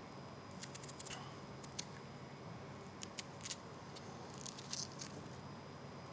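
Small paring knife cutting a peeled onion held in the hand: quiet, scattered crisp clicks and snips as the blade bites through, some in quick clusters, over a steady low studio hum.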